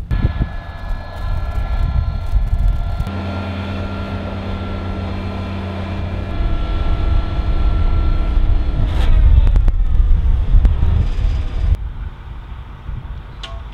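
Vibratory pile hammer and its hydraulic power pack driving steel piles: a loud, steady machine drone with a high whine over it. About three seconds in it turns to a deep, even hum, then to a rougher, louder rumble around nine seconds, and eases off near the end.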